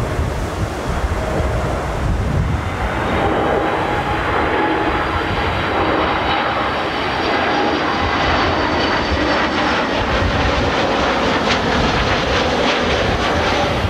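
Twin-engine jet airliner on final approach: a steady engine roar with a high fan whine that comes in about three seconds in and holds.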